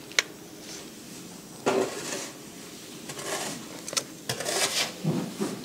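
Cooked leaf wrappers being peeled by hand off steamed idli cakes: irregular crackling and rustling of leaves, with a sharp click just after the start.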